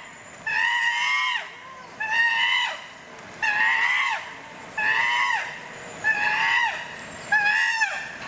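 A chimpanzee giving a steady run of high, pitched calls, about seven of them, each under a second long and dropping in pitch at its end.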